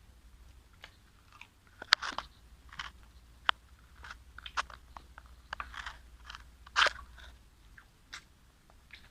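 Close-miked eating: a person biting and chewing crunchy food, with irregular crisp crunches and small clicks, the loudest about two seconds in and near seven seconds in.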